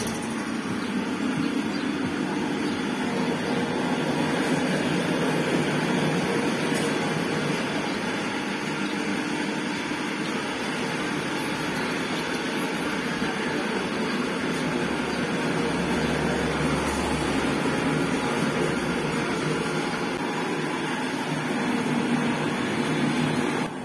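Electric sugarcane press at a juice stand running steadily, a constant even mechanical noise with no pauses.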